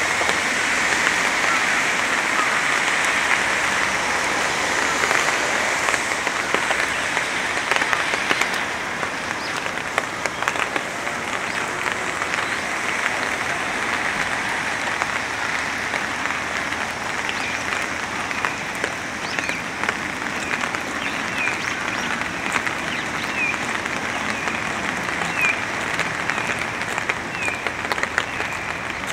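Steady rain falling, a dense patter of many small drops. In the second half, short high chirps repeat about once a second.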